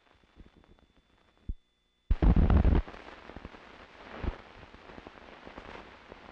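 Old field sound recording: faint crackles and clicks, then about two seconds in a sudden loud low thump and rumble lasting under a second, followed by steady hiss with scattered clicks.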